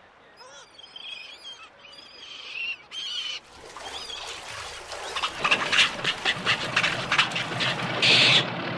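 Birds calling, with short honking and quacking calls, then from about three and a half seconds in a growing rush of splashing water that gets louder toward the end.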